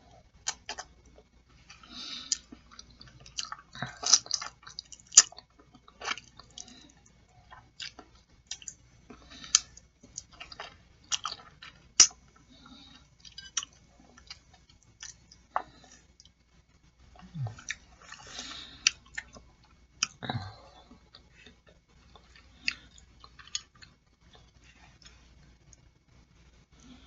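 Close-miked chewing of boiled chicken feet: wet smacks and sharp mouth clicks at irregular intervals. Twice, about two-thirds of the way through, comes a short low vocal sound that falls in pitch.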